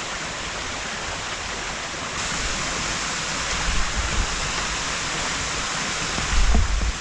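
Steady rush of flowing water, growing louder about two seconds in, with a few low thumps near the end.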